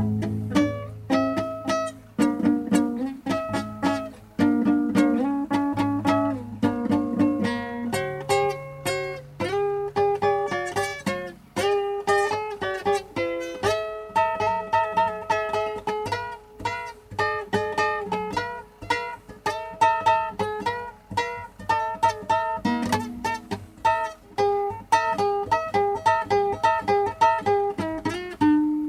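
Guitar playing an improvised blues: quick runs of single picked notes over sustained low bass notes.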